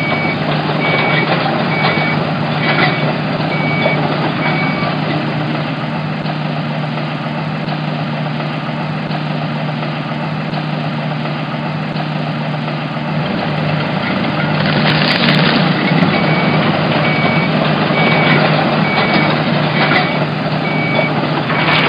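Heavy construction-vehicle engine sound effect running steadily, with a reversing alarm beeping evenly in the first few seconds and again near the end. A louder burst of noise comes about 15 s in.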